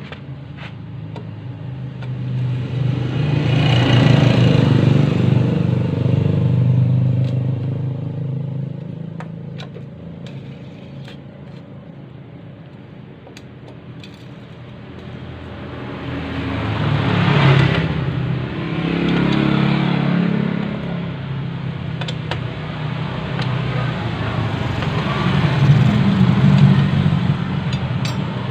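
Engine of another motor vehicle running nearby, swelling and easing off three times, with a few faint metallic clicks of a wrench on engine-cover bolts.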